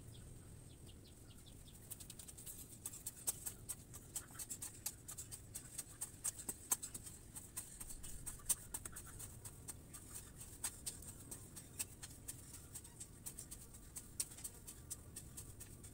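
Garden hoe scraping and chopping into soil and leaf litter: irregular quick scrapes and ticks, several a second at times, over a steady high hiss.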